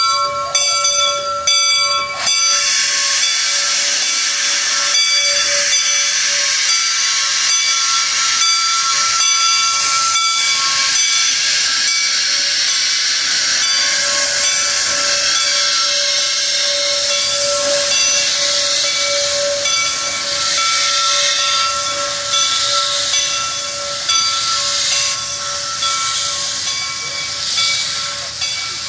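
Baldwin Pacific steam locomotive #425 letting off a loud, steady hiss of steam that starts about two seconds in, with the locomotive bell's ringing tones going on underneath.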